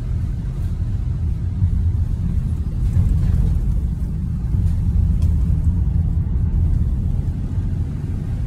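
Steady low rumble of a Ford Transit cargo van on the move, engine and road noise heard from inside the cab.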